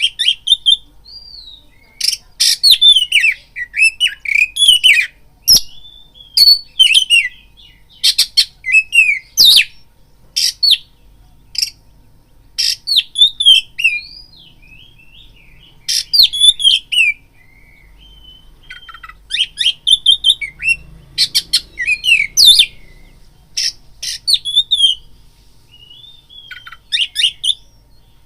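Oriental magpie-robin (kacer) singing: loud, varied, high whistles and sharp chattering notes in bursts of a second or two with short pauses between them.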